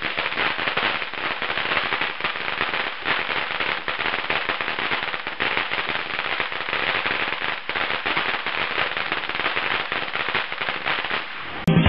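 Ground fountain firework spraying sparks, giving a steady dense crackling hiss made of many rapid small pops.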